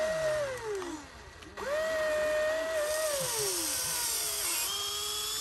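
Huina RC excavator's small electric motors whining as the boom and arm move: two whines that rise in pitch, hold and then glide down, the second longer, followed by a lower, steadier whine near the end.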